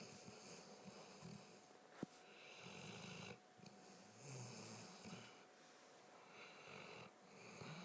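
Weimaraner snoring quietly: a few rasping snores with its breaths. There is a sharp click about two seconds in.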